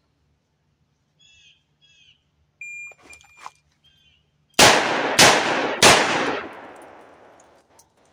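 A short electronic shot-timer beep, then three .357 Magnum shots from a Taurus 692 revolver, fired about 0.6 s apart, the last one ringing out for about two seconds. Birds chirp faintly before the shots.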